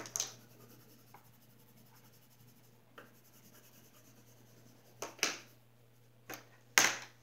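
Colored pencil shading on paper: a few short scratchy strokes with quiet pauses between, the loudest near the end.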